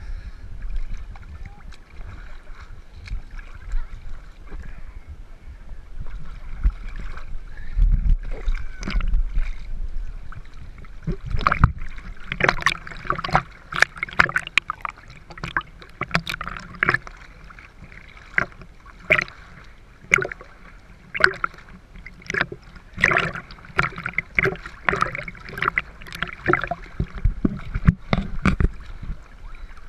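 Shallow seawater sloshing and splashing against a camera held at the water surface, with irregular sharp slaps and knocks. The splashes grow much denser and louder about a third of the way in.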